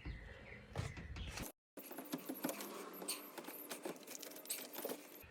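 Application tape being peeled slowly back off a wet-applied vinyl number decal, a faint scatter of small crackles and ticks as it lifts. The sound cuts out briefly about one and a half seconds in.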